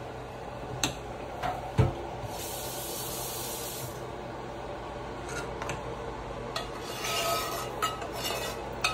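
A spoon scraping and knocking against a cooking pot, with several sharp knocks, the loudest just under two seconds in. A brief hiss comes around the third second, and rough scraping follows later.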